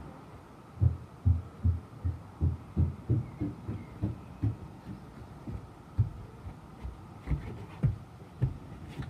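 A series of low, dull thuds, about two or three a second at first, then more scattered.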